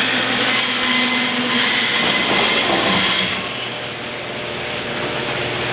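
Electric garage door opener motor running as the door travels, a steady mechanical hum that eases off a little past the middle and then builds again.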